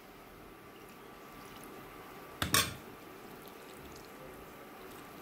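Coconut milk being poured over string hoppers (noolappam) in a steel bowl: a faint, steady pour, with one brief louder noise about halfway through.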